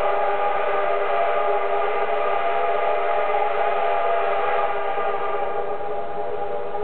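Steam-hauled train running past a level crossing while the crossing's warning signal sounds steadily. The train's running noise thins out about five seconds in, and the crossing signal keeps going.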